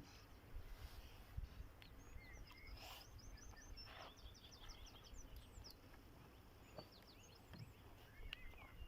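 Faint songbirds singing outdoors: short high chirps and whistles, with a quick trill of repeated notes about three seconds in, over a low rumble.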